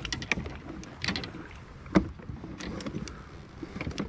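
Handling noises in a plastic fishing kayak: scattered clicks and light knocks against the hull and rubber landing net, with one sharper knock about two seconds in, as treble hooks are worked free of the net.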